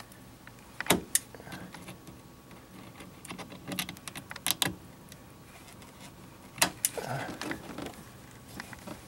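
A handful of sharp metallic clicks and clinks, some in quick pairs, as tongue-and-groove pliers grip, squeeze and slip off a spring hose clamp on a rubber hose.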